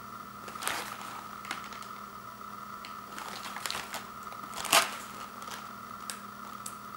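Cardboard cracker box handled and turned over in the hands: fingers scuffing and rubbing on the cardboard, with one louder knock about two-thirds of the way through, over a steady background hum.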